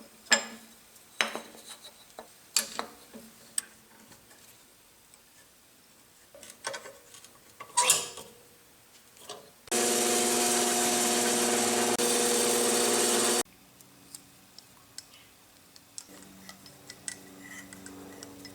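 Metal parts and tools clinking and knocking as they are handled, then an electric drill runs steadily for about four seconds, briefly easing off partway, drilling a set screw hole in a steel shaft, then stops abruptly, followed by a few more light clicks.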